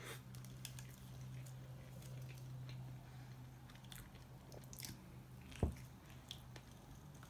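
A person biting into and chewing a mouthful of a large French tacos, a grilled flour wrap filled with meats and fries, with small wet mouth clicks and smacks. A soft thump about five and a half seconds in.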